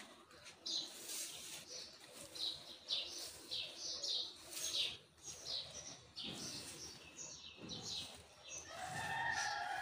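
A broom (jhaadu) sweeping a dusty concrete floor: short swishing strokes, about two a second, with a brief steady tone near the end.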